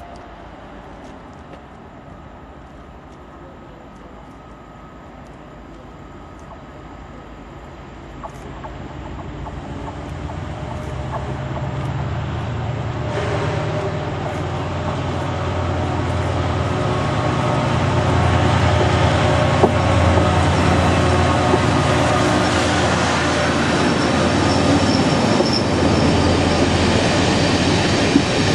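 Class 68 diesel-electric locomotive, Caterpillar V16 engine, approaching with its train, growing steadily louder over the first twenty seconds or so. Then the passenger coaches roll past on the rails at a steady level.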